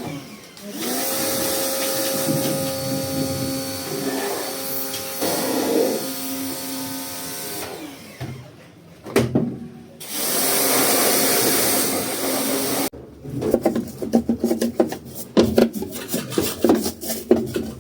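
A small electric motor whirring steadily in two runs, the first about seven seconds long and the second about three, then a quick string of knocks and clatters.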